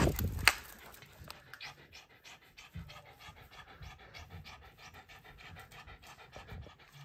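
A sharp click in the first half second, then a Shiba Inu panting in quick, even breaths with its mouth open.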